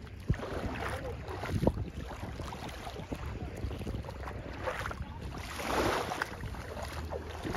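Light wind rumbling on the microphone over small waves lapping at the water's edge, with a few soft knocks and a swell of water noise about five seconds in.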